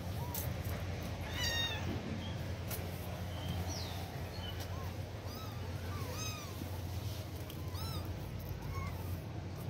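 A tabby kitten mewing over and over in short, high-pitched calls, a second or so apart, with a steady low hum underneath.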